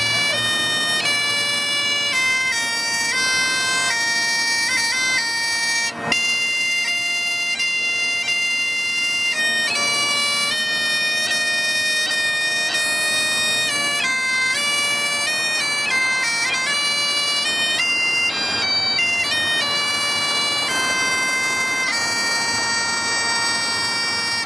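Bagpipes played solo: a slow chanter melody stepping from note to note over the steady drones, with a brief break about six seconds in.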